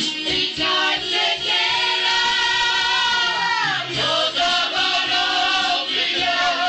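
Music with singing: long held, wavering sung notes, one of which slides down about halfway through.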